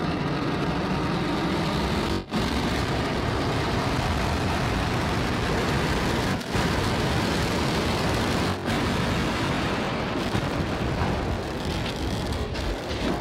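Starship SN8's Raptor rocket engines firing for the flip and landing burn: a steady, loud rocket roar that starts abruptly with the relight, broken by three brief dropouts.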